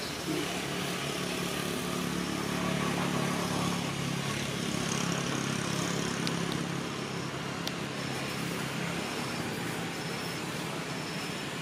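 Steady low hum of a motor vehicle engine with general traffic-like background noise, a little louder in the middle. A faint high chirp repeats about once every two-thirds of a second.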